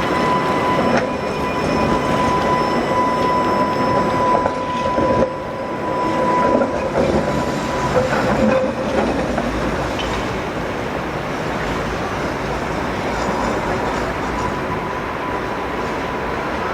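Tatra T3 tram running on street rails, with a steady high-pitched whine through the first half that fades out, then comes back faintly near the end.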